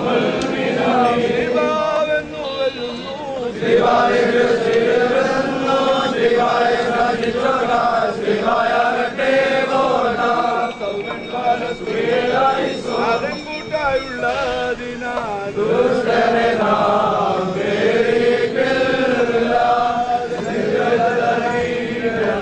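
Many voices chanting a church hymn together in unison, in long held phrases that rise and fall gently.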